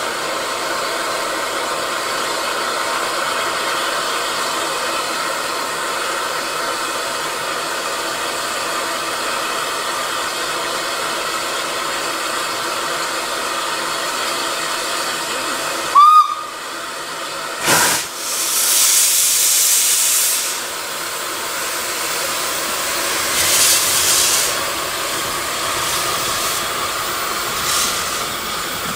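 Narrow-gauge saddle-tank steam locomotive standing with a steady hiss of steam. About 16 s in it gives one short whistle blast, and then, as it starts away, loud bursts of steam hiss out, twice.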